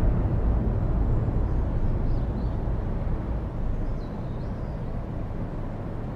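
Low rumbling ambient background, starting suddenly and slowly easing off, with a couple of faint high chirps about two and four seconds in.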